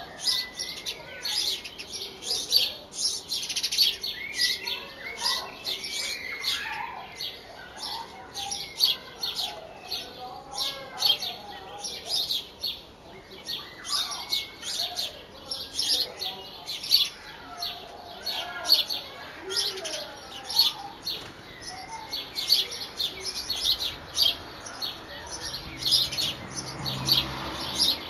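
Birds chirping in quick, sharp, high notes, several a second, over softer warbling bird song.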